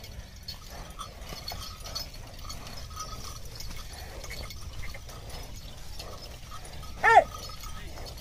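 Pair of bullocks pulling a loaded cart over dry paddy stubble: soft hoof steps and faint creaking and ticking from the cart, with one short, high, loud call about seven seconds in.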